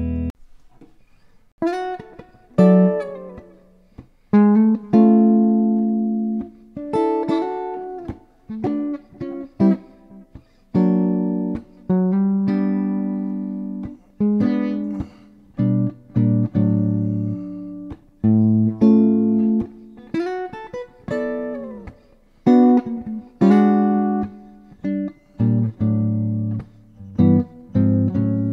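Clean-toned archtop electric guitar playing jazz chords and single notes, each plucked sharply and left to ring and fade, in short phrases with brief gaps between.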